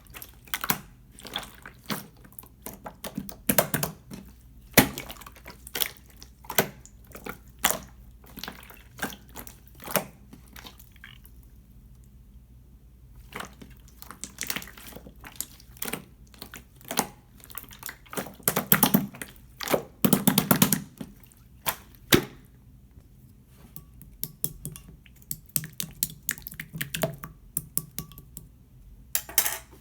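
Slime being squished, pressed and poked by hand, making irregular runs of wet clicks and pops with a couple of short pauses.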